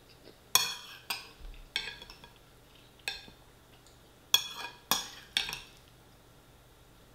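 Metal spoon clinking and scraping against a ceramic bowl while scooping chilli con carne and rice: a string of sharp, ringing clinks, several in the first two seconds and another cluster about four to five and a half seconds in.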